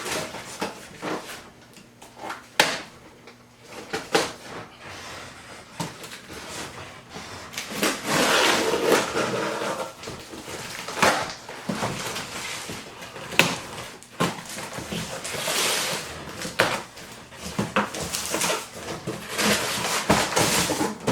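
Cardboard box being opened and its packaging handled: scattered knocks and clicks with several stretches of rustling and scraping.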